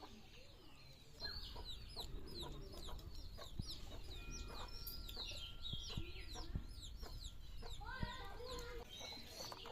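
Chickens calling: a rapid, continuous stream of short, high, falling peeps, with a few lower clucking calls near the end.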